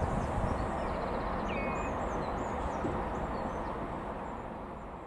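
Steady outdoor background noise with a few short bird chirps, slowly fading out.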